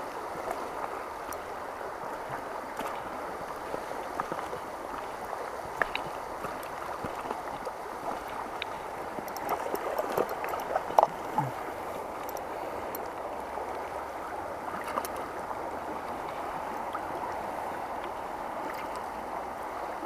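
Shallow river running fast over a cobble bed, a steady rush of water, with a few brief clicks and knocks about six seconds in and again around ten to eleven seconds in.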